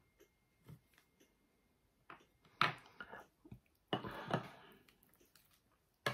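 Rustling and soft clicks of a deck of oracle cards being handled and shuffled, loudest in two bursts about two and a half and four seconds in. A faint high ringing tone fades out at the start.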